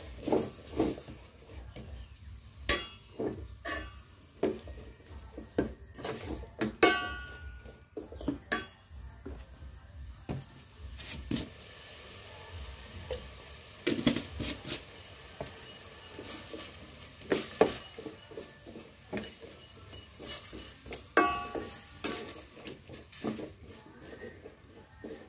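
A ladle and spoons knocking and scraping against a metal cooking pot as food is stirred, in irregular clinks, a few of them ringing briefly.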